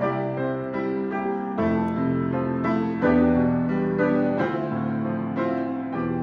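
Piano being played: a slow melody over sustained chords, with new chords struck every second or so and left ringing. The strongest chord comes about three seconds in.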